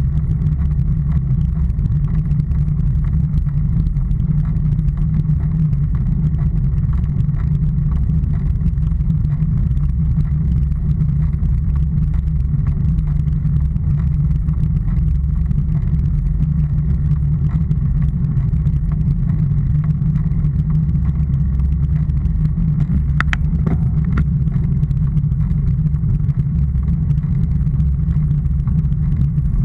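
Steady low road rumble of a ride along a rough asphalt road. Two short sharp ticks come close together about three quarters of the way through.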